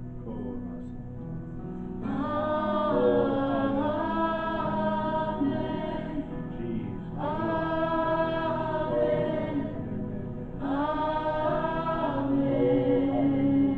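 Worship team singing a slow gospel song over sustained accompaniment chords, the voices coming in with three long phrases.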